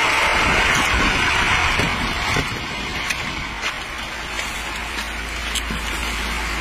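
Pickup truck with its engine running: a loud hissing rush for the first couple of seconds, then a steadier low hum, with a few scattered knocks and clicks as men climb into the cab.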